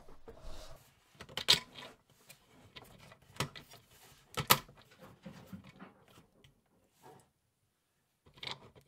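3D-printed plastic parts clicking and knocking as a leg is pressed into the snap-on clips of a screw sorter frame: a few sharp clicks, the loudest about four and a half seconds in, with quieter rattling between. A pause of about two seconds comes before a few more clicks near the end.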